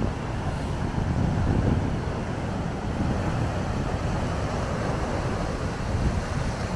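Wind buffeting the microphone over the steady rush of heavy surf breaking against rocks.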